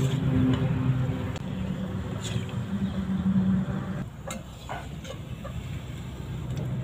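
Gulab jamun balls sizzling as they fry in hot oil, with a few light clinks of a slotted metal spoon against the pan. A steady low hum runs underneath.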